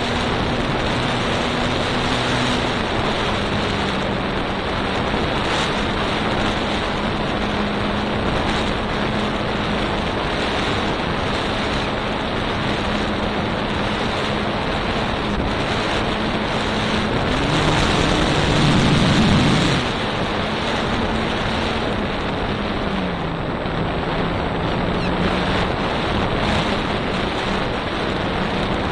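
Steady rush of airflow over the microphone of a camera riding on a Trainstar Exchange RC plane in flight, with the plane's brushless electric motor and propeller humming at a steady pitch underneath. The hum drops in pitch a few seconds in, climbs with a louder swell about two-thirds of the way through, then dips and settles again.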